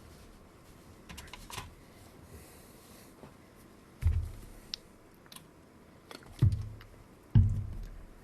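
Bench handling noises as tools and parts are picked up and put down: a few light clicks, then three dull knocks on the work surface, the last the loudest.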